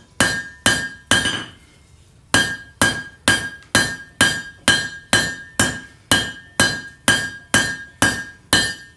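Blacksmith's hand hammer striking hot steel bar on an anvil in a steady rhythm, about two and a half blows a second, each with a short metallic ring. There is a brief pause about a second and a half in. The smith is drawing out the bar, making it longer and thinner.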